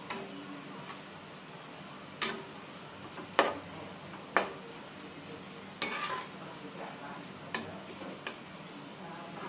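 Metal spatula knocking and scraping against a frying pan as dried anchovies are stirred in hot oil, about seven sharp irregular knocks, the loudest about a third and halfway through, over a low steady sizzle of the frying.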